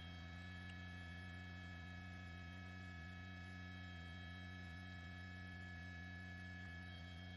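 Steady low hum with faint, steady high whining tones from a news helicopter's intercom audio feed.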